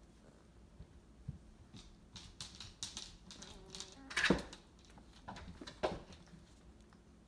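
Weimaraner puppies stirring in a litter pile on a blanket: scattered light clicks and scuffles, with one louder sharp sound about four seconds in.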